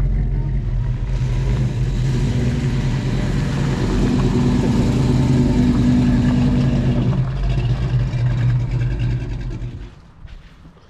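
A motor vehicle's engine running steadily with road and wind noise, swelling slightly midway, then dropping away sharply near the end.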